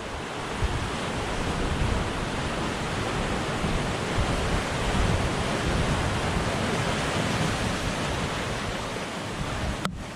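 Ocean surf washing over black lava rocks along the shoreline, a steady rushing wash with a brief break near the end.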